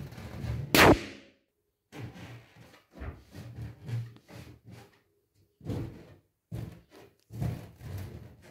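A latex balloon bursting with a sharp bang under a stiletto heel about a second in, the loudest sound here. After it come irregular rubbery squeaks and thuds as a heel presses and rolls another balloon against a tile floor.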